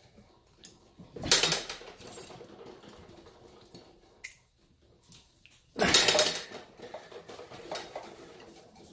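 Metal clanking and rattling from a hanging crane scale, its steel hooks and the workbench, in two sharp jolts about four and a half seconds apart, each lasting under a second, as a super-glued carbon fiber rod end is yanked in a pull-out test. The second pull reaches 184 pounds and nearly tips the bench, and the glued joint holds.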